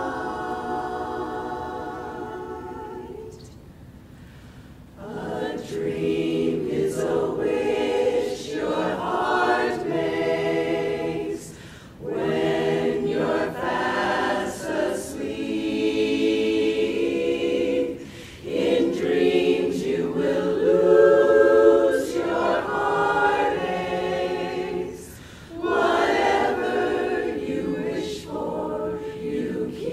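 Women's barbershop chorus singing a cappella in close harmony. A held chord fades out about three seconds in, and after a short lull the singing resumes in phrases broken by brief breath pauses.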